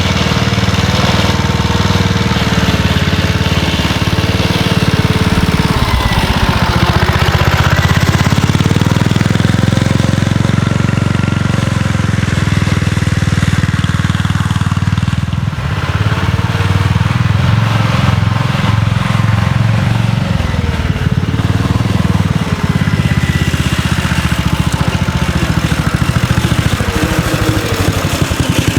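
1963 Cushman Trailster scooter's single-cylinder four-stroke engine running under load on a trail ride, easing off and picking back up about six seconds in and again about halfway through.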